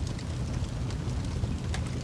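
Wood fire burning with a low steady roar and scattered sharp pops and snaps, a few of them in quick succession.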